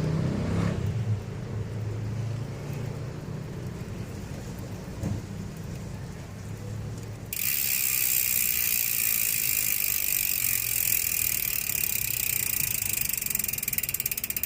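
Koozer XM490 six-pawl rear hub freewheeling: first a low rumble of the wheel turning, then about halfway a sudden, steady high buzz of the pawls ratcheting rapidly as the wheel coasts.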